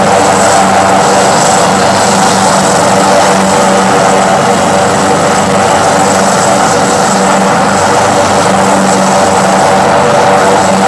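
Military helicopter running on the ground with its rotor turning: a loud, steady turbine whine and rotor noise, with a thin high whistle over it.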